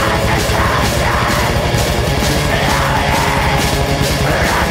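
Black metal song: a dense wall of distorted guitars and rapid drumming under harsh screamed vocals.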